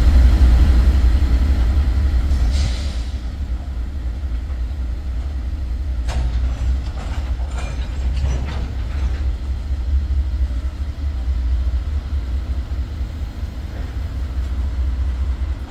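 A lash-up of six Norfolk Southern diesel locomotives moving past, a steady low engine rumble that eases slightly after about three seconds, with a few light clicks from the wheels on the rails in the middle.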